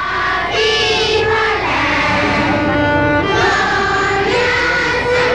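A group of children singing together, holding long notes that move from pitch to pitch.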